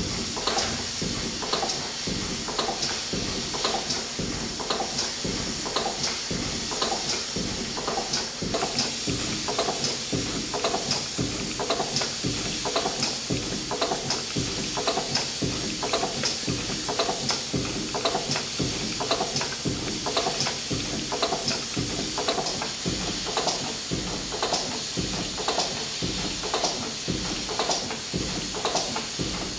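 1923 R. Wolf steam engine running steadily: a continuous hiss of steam with regular beats about twice a second.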